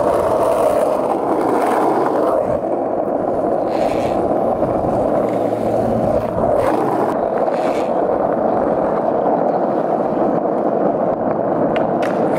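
Skateboard wheels rolling over rough asphalt: a steady, continuous rumble, heard close up from a board that is being ridden.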